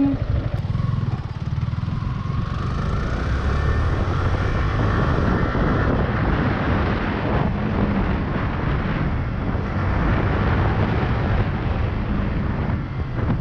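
Yamaha R15 V3's 155 cc single-cylinder engine pulling away and accelerating hard, its note rising over the first few seconds, then running at speed with wind rushing over the microphone.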